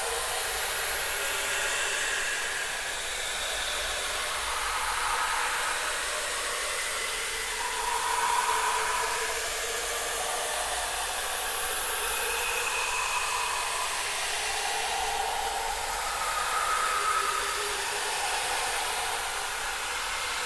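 Creepy horror ambience sound effect: a steady, airy hiss with soft, drifting swells of pitch that rise and fade one after another, the strongest about eight seconds in and again near the end.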